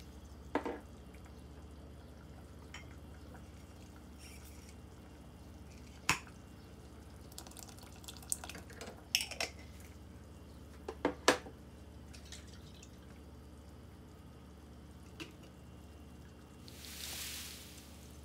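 Scattered sharp clicks and knocks of bottles, containers and utensils being handled over a pot, over a low steady hum, with a brief rush of liquid poured into the pot near the end.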